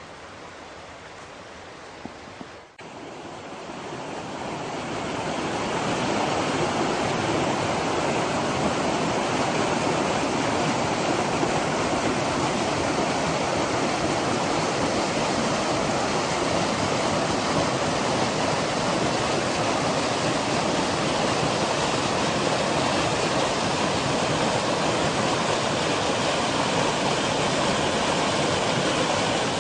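A mountain stream rushing in a steady wash of water noise. It swells in over a few seconds after a brief break near the start, then holds even.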